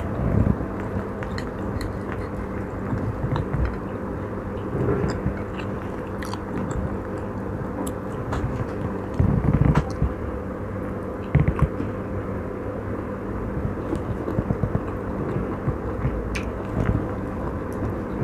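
Close-miked chewing and biting of chicken steak: scattered wet mouth clicks, with louder chews about nine and eleven seconds in. A steady low hum runs underneath.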